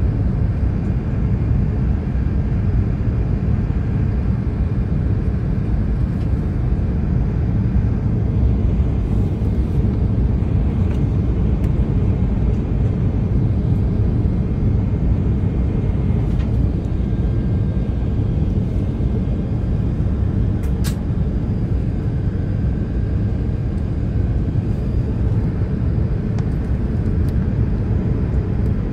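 Steady low rumble of an Airbus A380's engines and rushing airflow, heard inside the passenger cabin during the descent to land.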